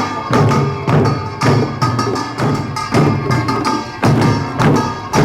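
Korean samulnori percussion playing a steady rhythm: drum strikes under the ringing of metal gongs.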